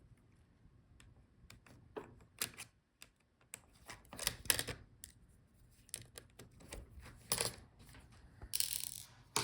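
Light, scattered clicks and taps of a laptop's small metal bracket and plastic touchpad being handled and lifted out of the palmrest, with a brief rustle near the end.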